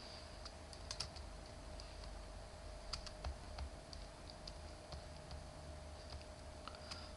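A few faint, scattered clicks of a computer mouse and keyboard over a steady low hum.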